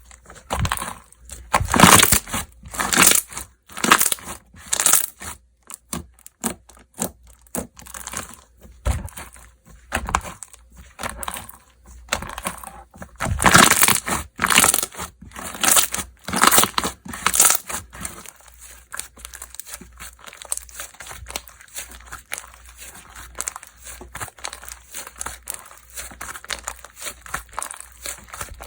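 Slime being squished, pressed and stretched by hand, giving irregular sticky crackles, pops and squelches. The sounds come in denser, louder spells and turn softer for the last ten seconds or so.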